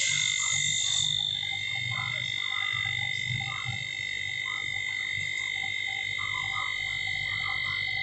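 Refrigerator's hermetic compressor running, pushing air and oil out through the open condenser pipe to flush it. A steady hiss with two steady high tones over a low hum, broken by short irregular sputters.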